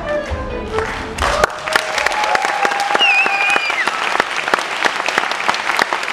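Hungarian folk dance music ends about a second in, and an audience breaks into applause that carries on steadily.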